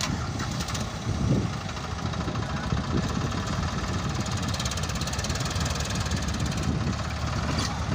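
Diesel engines running steadily: a JCB 3DX backhoe loader working mud into tractor trolleys.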